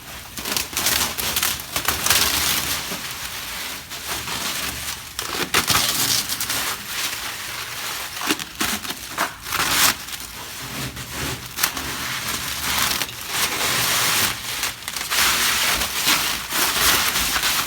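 Packaging wrap crinkling and crackling as it is handled and pulled away, a continuous irregular crackle with frequent sharper snaps.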